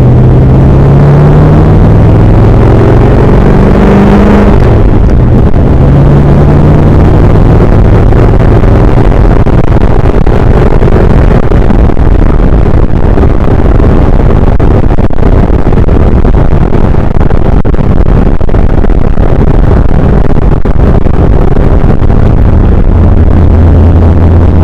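Car engine accelerating with the pitch climbing, a sudden drop at a gear change about four and a half seconds in, then climbing again before settling into a steady cruise. The recording is heavily distorted, overloaded throughout.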